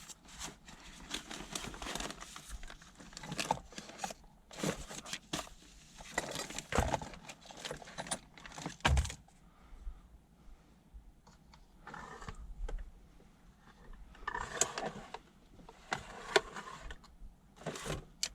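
Metal hand tools clinking and clattering as someone rummages through them, a string of irregular short knocks and jangles.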